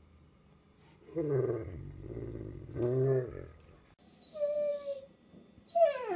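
A dog vocalizing: deep, grumbling vocal sounds with shifting pitch for a couple of seconds, then a higher, steady whine, and a second whine that slides down in pitch near the end.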